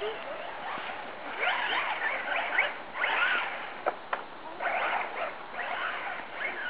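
Electric radio-controlled cars' motors whining in bursts, the pitch rising and falling as the throttle is worked, with a couple of sharp knocks about four seconds in.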